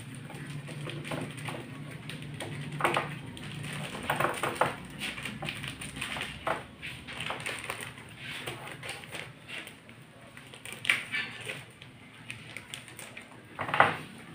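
Paper bag of glutinous rice powder being handled and opened by hand: irregular rustling and crinkling with small knocks against the table, and one sharper knock shortly before the end.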